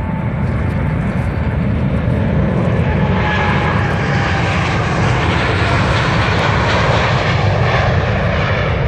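Boeing 787-8 Dreamliner's GEnx turbofan engines at takeoff thrust: a steady, loud jet roar with a deep rumble. A hissing upper edge swells about three seconds in as the airliner passes closest on its takeoff roll and lifts off, and a faint whine slides slightly lower in pitch as it goes by.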